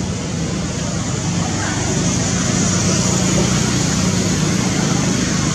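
A motor vehicle's engine running close by over steady road noise, its low hum growing louder about two seconds in and holding.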